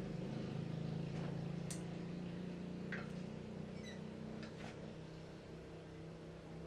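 A small engine running steadily at an even pitch, slowly getting a little quieter, with a few light clicks over it.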